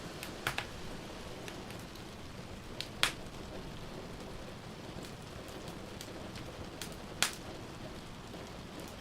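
Steady hiss of rain with a wood fire crackling in a fireplace: a few sharp pops, the loudest about three seconds in and again about seven seconds in.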